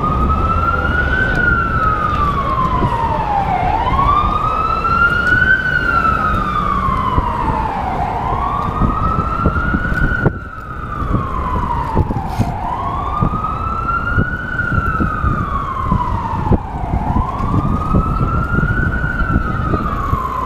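A siren on a slow wail, rising fairly quickly and falling more slowly in a cycle of about four seconds, repeating throughout, over the low rumble of city street traffic.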